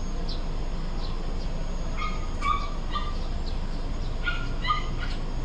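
A dog yipping: a few short, high yelps about two seconds in, and two more near the end, over a steady low hum.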